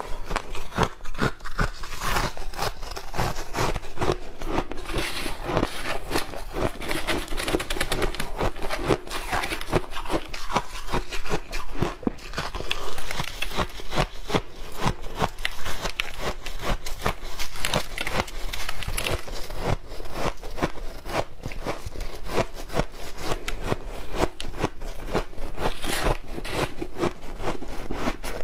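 Refrozen shaved ice being bitten and chewed close to a clip-on microphone: a dense, continuous run of crisp crunches.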